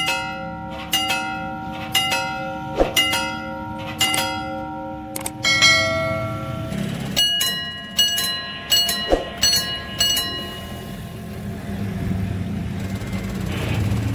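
Railway level-crossing warning bells ringing, each strike ringing on. About one strike a second at first; about seven seconds in, a bell with a different tone takes over, striking faster and unevenly, then dies away. The ringing warns that a train is approaching.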